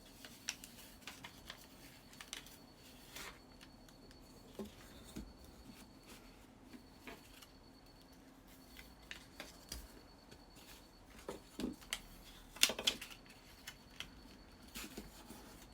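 Paper and crafting tools being handled on a work table while measuring and cutting cardstock: scattered light clicks, taps and scrapes at irregular moments, the loudest cluster about twelve and a half seconds in.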